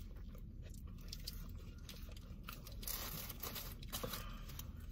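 Close-up eating sounds: chewing and crunching on fried catfish sliders and fries, with foil wrappers crinkling and a short rustle about three seconds in.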